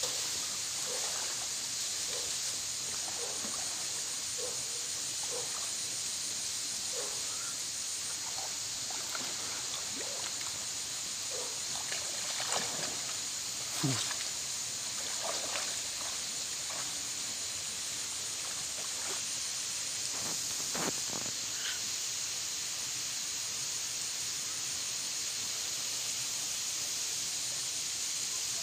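Creek-side outdoor ambience: a steady high-pitched hiss with short faint calls repeating through the first half, and a slosh of a hand in shallow muddy water about halfway through.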